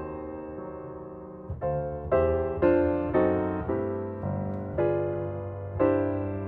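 Background piano music: a gentle melody of chords struck about every half second, each note ringing and fading.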